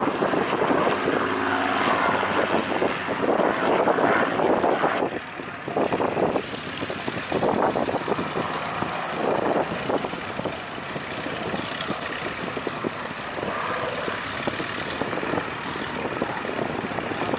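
Propeller-driven piston-engined aircraft flying past, loudest in the first few seconds and then steadier and a little quieter.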